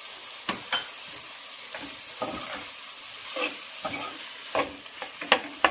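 A metal slotted spoon stirring mashed potato and paneer in a metal kadai, scraping and clinking against the pan, over a steady low sizzle of oil on a low flame. The sharpest clinks come near the end.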